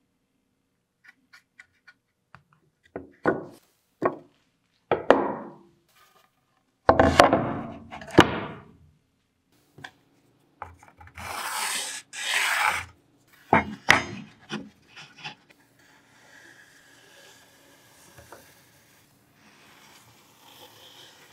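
Workshop handling of wood: pieces of wood knocked and set down on a wooden bench, two loud rubbing scrapes a little past the middle, more knocks, then faint continuous scratching of a pencil marking wood.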